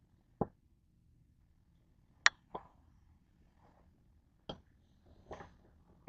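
A handful of separate sharp knocks and clicks of hard metal pieces being handled and set down, spread a second or two apart.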